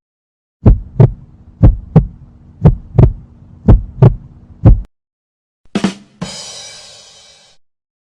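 Heartbeat sound effect: low paired lub-dub thumps about once a second, four and a half beats over a steady low hum, stopping just before 5 s. About a second later comes a different, short effect: a brief blip, then a hiss-like sound with a faint ringing that fades out.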